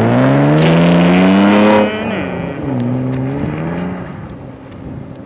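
2006 Kia Sorento's engine revving, climbing in pitch for about two seconds, then dropping off sharply and winding down to a lower, fading drone.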